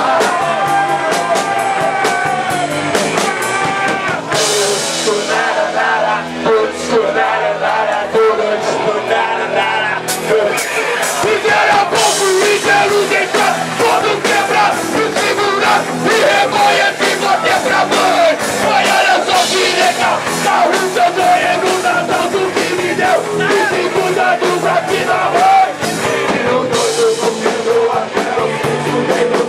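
A rock band playing a fast punk-rock song live, with singing over guitars and drums.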